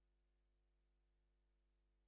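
Near silence: only a very faint steady hum and hiss, with no other sound.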